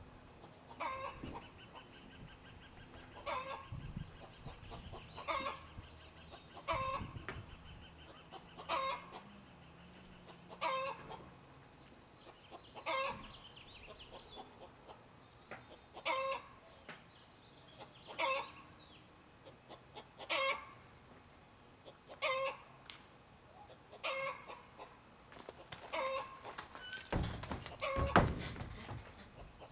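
Short sharp animal calls repeat about every two seconds. Near the end, a horse's hooves thump heavily as it steps up into a horse trailer, the loudest sound here.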